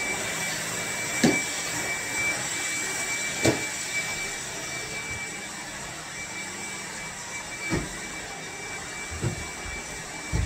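Steady whooshing hiss of background noise, with a thin steady high tone and about five short soft knocks spread through it.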